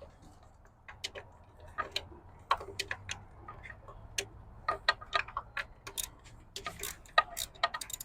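Irregular metallic clicks and taps of hand tools working on bolts in a car's engine bay.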